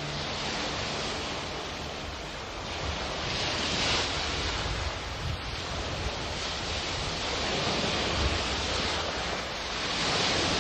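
Sound of ocean waves: a steady wash of noise that swells and eases every few seconds.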